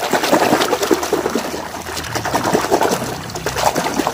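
Rapid, continuous splashing and sloshing of water as a hand swishes and scrubs a plastic toy dump truck under the surface to wash mud off it.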